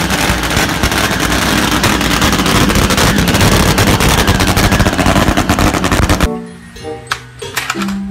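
Drag-racing motorcycle's engine running very loud through its short open exhaust pipes, a dense rapid crackle that cuts off about six seconds in. Background music follows.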